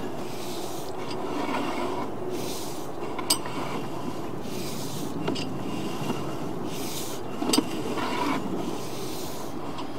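Sewer inspection camera's push rod being fed down the line, rubbing and scraping in repeated pushes, with a few sharp clicks.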